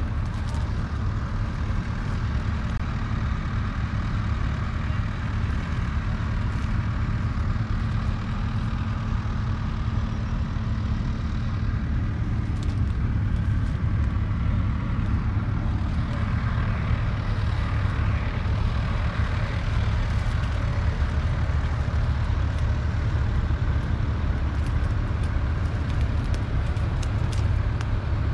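John Deere 3650's 5.9-litre six-cylinder diesel engine idling steadily with a low rumble.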